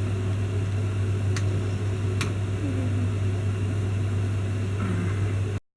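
Steady low mechanical hum of a running motor, with two faint clicks; it cuts off suddenly near the end.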